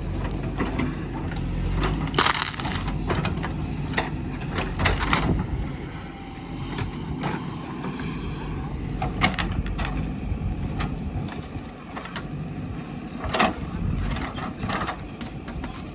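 JCB 3DX backhoe loader's diesel engine running steadily under load while the bucket scrapes and crunches through soil and stones, giving a string of irregular knocks and grating crunches, loudest about two seconds in and again near thirteen seconds.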